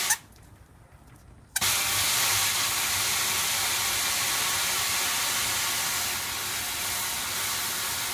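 Garden hose spray wand hissing as it showers water onto a rain-collection bucket's lid and landscape-fabric mosquito cover. The spray cuts off at the very start and comes back on about a second and a half in, then runs steadily.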